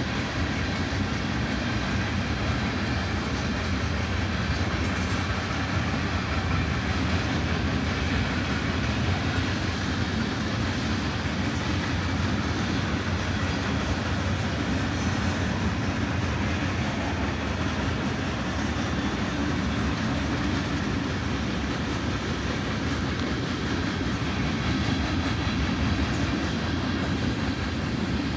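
A coal train's freight cars rolling steadily past at a grade crossing, a continuous, even rolling noise of wheels on rail.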